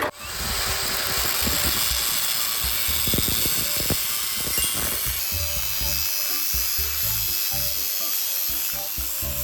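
Background music with a repeating beat, over a steady hissing noise from a power tool working the material.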